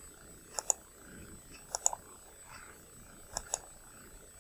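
Computer mouse button clicking: three quick groups of two or three sharp clicks each, as points of a polygonal lasso selection are placed in Photoshop. A faint steady high whine sits behind them.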